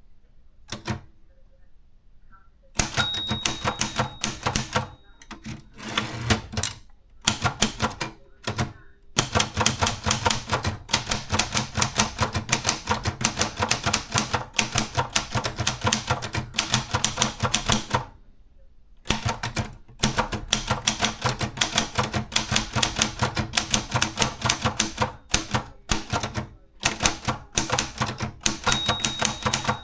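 Maritsa 30 portable manual typewriter being typed on: fast runs of sharp key and typebar strikes with short pauses between words and lines, after a near-quiet start with a single stroke. A short bell-like ding sounds twice, once about three seconds in and once near the end.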